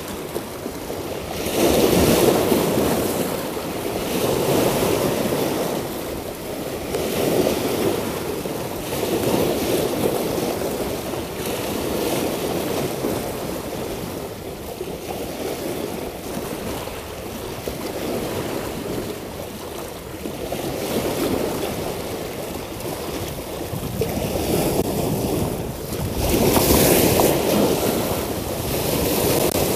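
Sea waves breaking and splashing over riprap rocks, surging and ebbing every few seconds, loudest shortly after the start and again near the end.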